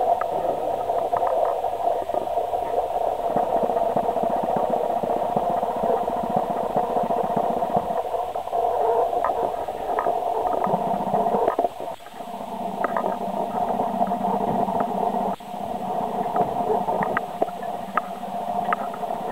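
Steady rumble of small hard wheels, machine skates and a pallet jack, rolling a heavy CNC mill across a concrete floor, with scattered clicks and knocks.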